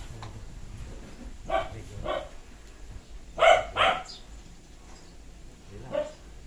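A dog barking in short, sharp barks: two about a second and a half in, two louder ones about three and a half seconds in, and one more near six seconds.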